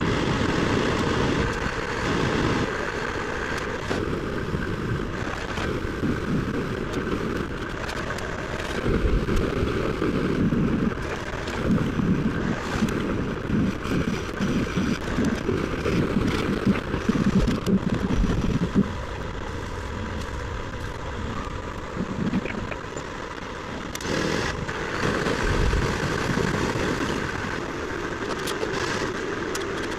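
Concrete pump truck's engine running with wind noise on the microphone, a dense steady rumble that grows busier and rougher through the middle.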